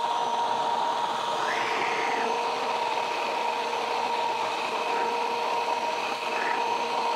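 Inexpensive Kmart stick blender running at the bottom of a jar, its motor giving a steady whine, as the blade draws oil into egg yolk to emulsify aioli.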